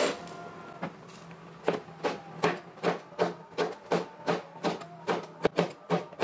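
A Chinese cleaver chopping a red chilli into rings on a bamboo cutting board, its blade knocking on the wood. The strikes come in a steady run of about three a second from a second and a half in, after a single cut near the start.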